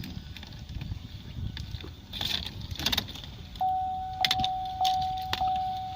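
Car keys jangling and clicking in the ignition area of a Holden VF Commodore, then, a little past halfway, a steady electronic warning chime from the dash starts and sounds in repeated pulses.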